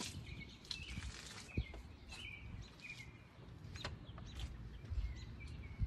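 Birds chirping in short, scattered calls over a low uneven rumble, with a few faint clicks.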